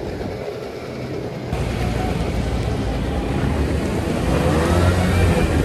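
Engine running and wind rushing past during a ride on a small open motor vehicle. About a second and a half in the sound jumps abruptly louder, and voices laughing rise over the engine noise.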